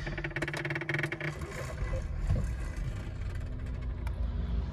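Car engine being started: a quick run of rapid pulses for about the first second, then the engine settles into a steady idle.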